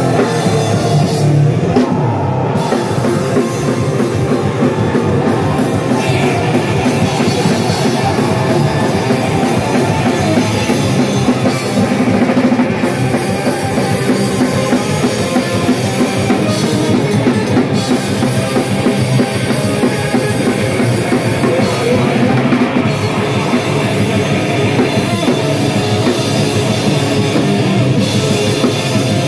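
A guitar-and-drums powerviolence duo playing live: distorted electric guitar over a pounding drum kit with cymbals, loud and continuous.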